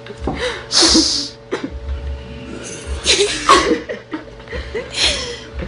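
Three short, breathy vocal bursts from a person, about two seconds apart, each a hissy blast with a bit of voiced pitch in it.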